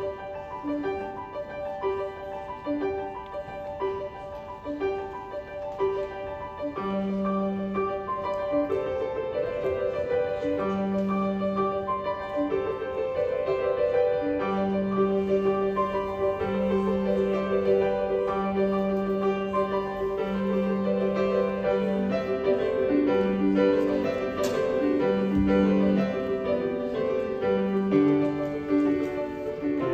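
Solo piano playing a quick, repeating broken-chord figure; low bass notes join about seven seconds in, and the playing grows fuller and louder soon after.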